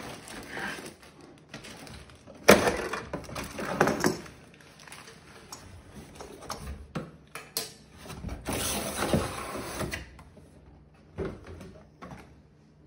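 Plastic model kit parts being handled and fitted together: irregular clicks, knocks and snaps, with the loudest knock about two and a half seconds in and a stretch of rustling around eight seconds in.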